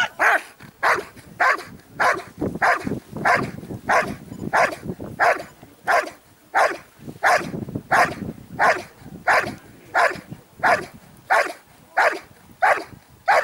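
Belgian Malinois barking steadily and rhythmically at a protection helper, about three barks every two seconds without a break: the guard-and-bark of protection work, the dog holding the helper in place with its barking instead of biting.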